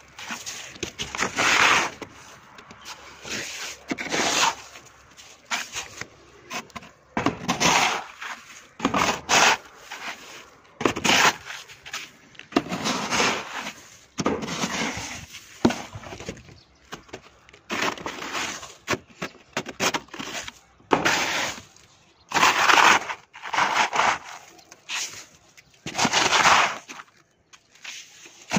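Piled hailstones crunching and scraping as they are pushed and dug through, in repeated irregular strokes every second or two.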